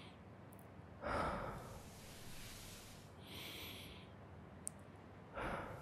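Soft close-up breaths from a man: a nasal exhale about a second in and another near the end. Between them come a brief high hissing rustle and a faint click.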